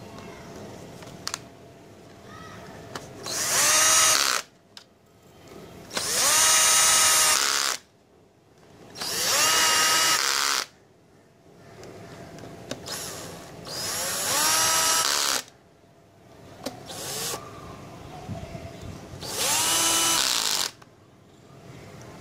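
Cordless drill-driver running in five short bursts, each spinning up to a steady whine, as it drives in the bolts of a Honda CD-70 engine's crankcase cover; light clicks of handling between bursts.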